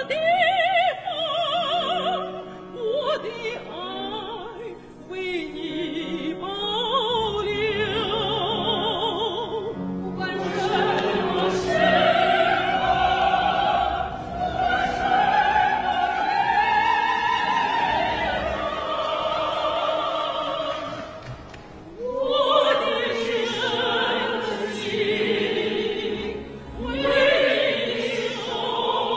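Female soprano singing a slow, lyrical Chinese song in a bel canto style with wide vibrato, taking a breath about two thirds of the way through before going on.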